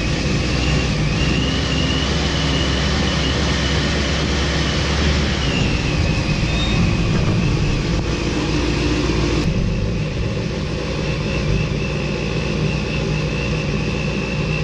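Vehicle engine running steadily, a steady high-pitched whine over a low hum.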